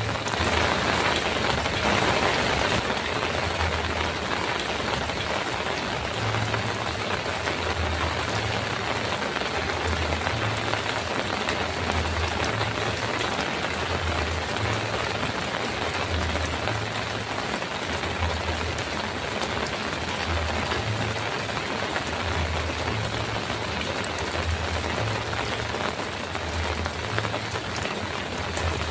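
Heavy rain drumming on a metal roof: a steady, dense hiss, heavier for the first couple of seconds, with a soft low rumble that comes and goes underneath.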